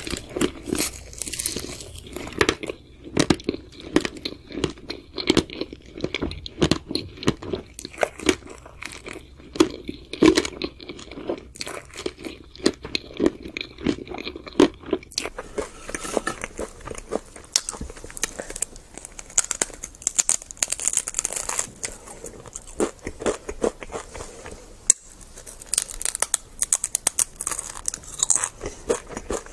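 Close-miked eating sounds: a steady run of crunchy bites and chewing. About halfway through the texture turns crisper and higher-pitched.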